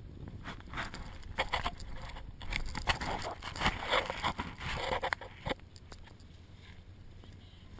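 Irregular rustling and sharp knocks over a steady low rumble, dying away after about five seconds and leaving only the rumble.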